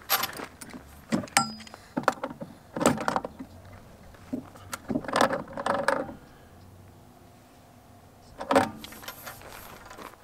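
Metal clinking and clanking as the threaded fitting of a corrugated stainless steel hose is screwed onto a filter housing outlet and tightened with pliers: a run of sharp clicks and rattles, then one more clank near the end.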